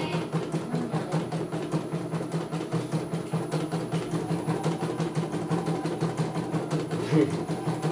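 CNY E900 embroidery machine stitching steadily, its needle mechanism clattering in a rapid, even rhythm. A brief louder knock sounds about seven seconds in.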